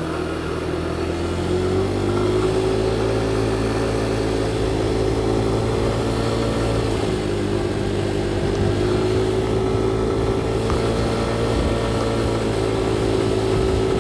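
Motorcycle engine under way, heard through a helmet-mounted microphone. The revs climb about two seconds in, dip briefly around seven seconds, then pick up again and hold steady.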